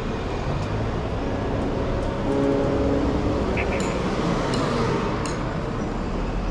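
Background music over steady street traffic noise, with a double-decker bus engine running close by.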